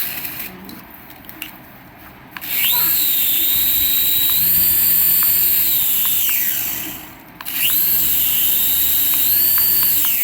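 Small electric motor of a remote-control toy whirring with a high whine. About two seconds in it spins up and runs steadily, then winds down with a falling whine, then spins up again and runs on.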